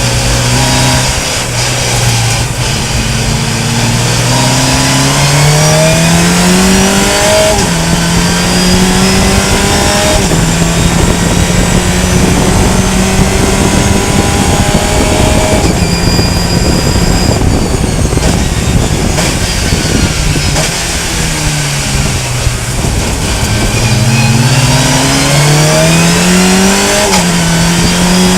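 Fun Cup race car engine under hard acceleration, climbing through the gears with quick upshifts, then held at steady high revs on a long flat-out stretch. Near the end the revs drop away as it slows, then it accelerates hard again through two more upshifts.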